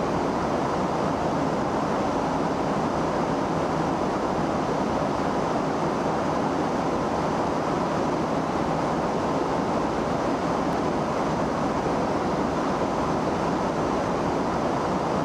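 Steady, even rush of aircraft noise in flight, engine and airflow blended into one unchanging drone.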